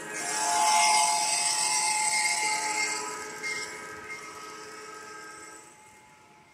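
G-scale model train running close by with a high rushing noise, while a locomotive's sound unit sounds a long, steady multi-note horn. The rushing noise drops away about three seconds in; the horn holds until near the end, then fades.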